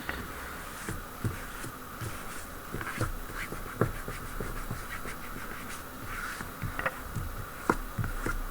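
Faint handling sounds of a phone and a clear protective film being worked by hand: soft irregular taps and light rubbing as the wrap is pressed and smoothed on.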